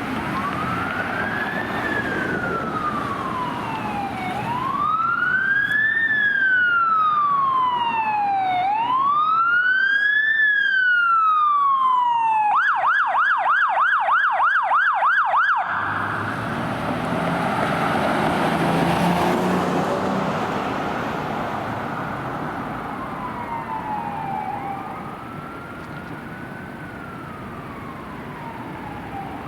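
Emergency vehicle's electronic siren wailing in slow rises and falls of about four seconds each, then switching to a fast yelp of about four cycles a second for some three seconds before cutting off suddenly. Traffic noise follows, with a fainter siren wail later on.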